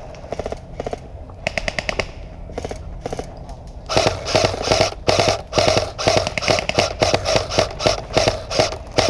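Airsoft rifles firing rapid full-auto bursts. There are a few short, fainter bursts at first, then from about four seconds in a close, louder run of repeated bursts.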